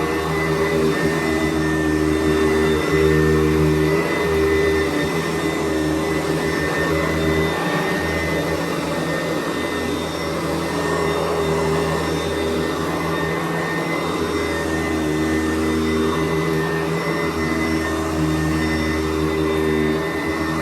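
Sanitaire SC889B commercial upright vacuum running continuously on the floor, a steady motor whine over a rushing airflow, its lower hum wavering in strength every few seconds.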